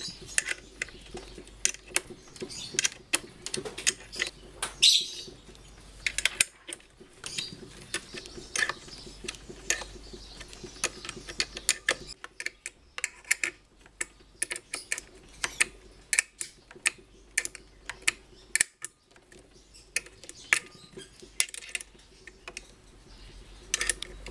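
Irregular metal clicks and taps of a wrench on steel bolts, tightening the new pump housing onto a Hitachi automatic water pump a little at a time, with short pauses between bursts of clicks.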